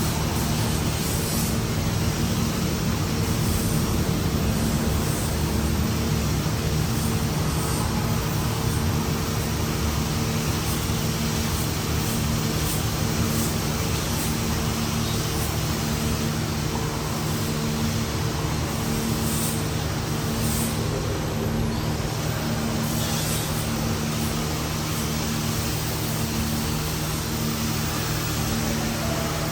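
A vehicle running steadily: a constant engine drone with even road-like noise and no change in pitch.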